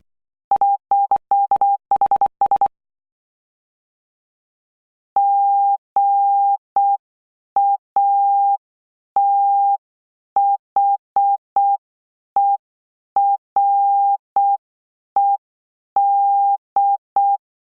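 Morse code sent as a single steady beep tone keyed on and off. First comes a quick run of fast dots and dashes, then a pause, then a slower sequence of dots and dashes that spells out the word GATHERED.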